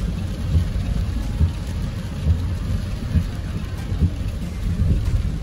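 Steady low rumble of a moving car, with irregular low thumps over a hiss.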